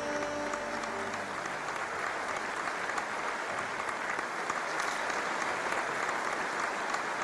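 Audience applauding steadily, with the last notes of a song's music dying away in about the first second.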